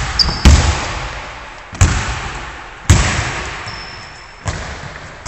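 Basketball bouncing on a wooden gym floor: about five sharp thuds, roughly a second apart, each ringing on in the echo of a large hall.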